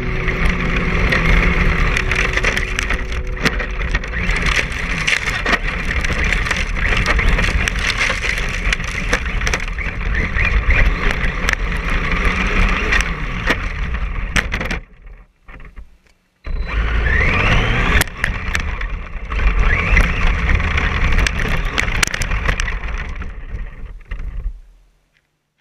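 On-board sound of an RC monster truck driving fast over grass and gravel: a steady rushing noise from the tyres and the ground, full of rattling clicks. It drops out for a moment past the middle, comes back with a short rising whine, and fades out near the end.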